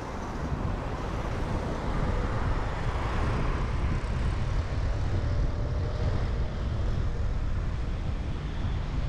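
Street traffic noise: cars and motorbikes passing on the road, a continuous rumble that swells slightly a couple of seconds in.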